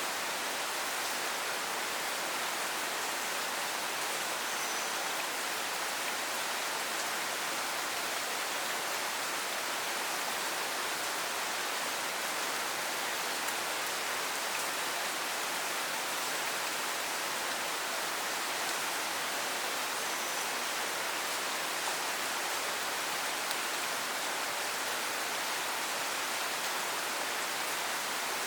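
Steady rain falling, an even unbroken hiss with no single drops or events standing out.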